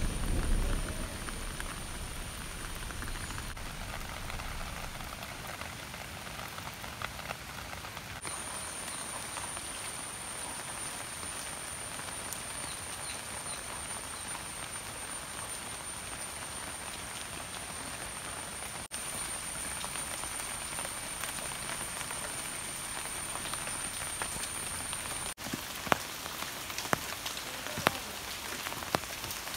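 Monsoon rain falling steadily on grass, puddles and leaves, with a low rumble of thunder dying away in the first second. A thin, steady high-pitched whine runs through the middle, and near the end heavier drops strike the leaves in sharp ticks.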